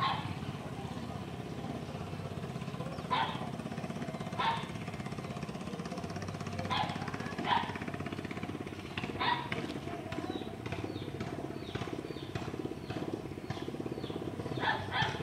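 A small motor running steadily with a fast, even pulse. Short, sharp animal calls break in every second or two, twice close together near the end.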